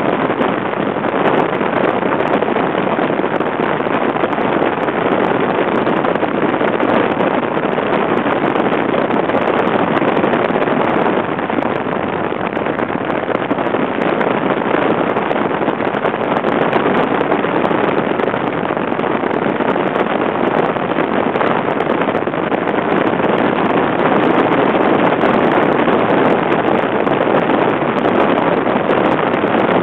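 Steady road and wind noise of a car driving at highway speed, heard from inside the moving car.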